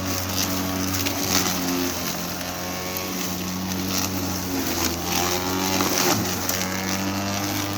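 Greenworks Pro 80-volt cordless lawnmower's electric motor and blade running through thick, overgrown growth: a steady hum whose pitch dips and recovers as the load changes, with a few short crackles from the cut material.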